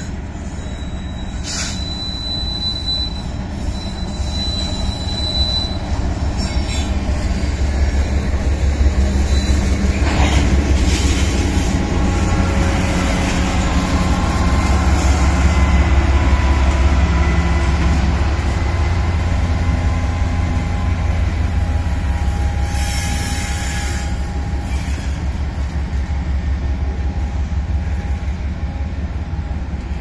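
Diesel locomotives of a BNSF freight train passing close by, their engines running with a low rumble that is loudest in the middle, then covered hopper cars rolling past. Thin steady wheel squeal runs under the rumble.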